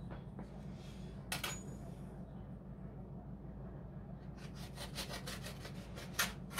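A steady low hum with one short scrape about a second in, then a quick run of scraping strokes, about five a second, over the last two seconds.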